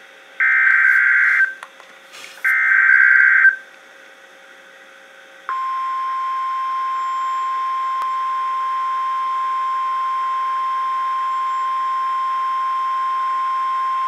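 NOAA Weather Radio emergency alert from a weather alert radio: the last two of three harsh digital SAME header bursts, each about a second long, then after a pause of about two seconds the steady 1050 Hz warning alarm tone begins and holds. This is the Emergency Alert System header and attention tone that signals a warning, here a severe thunderstorm warning.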